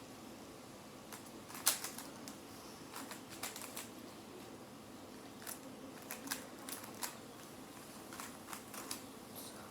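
Plastic Rubik's Cube layers being turned by hand: a string of irregular clicks and clacks, the loudest about two seconds in.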